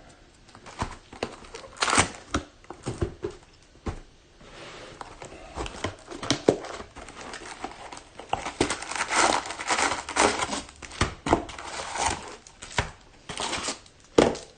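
Plastic wrapping crinkling and tearing as a sealed 2021 Topps Pro Debut baseball card hobby box is unwrapped and opened, with irregular rustles and sharp clicks, busiest in the second half.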